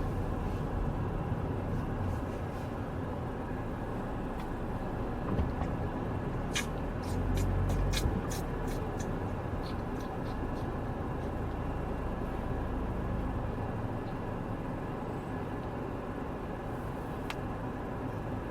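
Steady road and engine rumble inside a moving car, with a few light clicks about seven seconds in and once more near the end.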